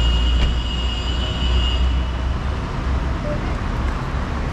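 Street traffic noise with a steady low rumble, and a thin, steady high-pitched squeal that stops about two seconds in.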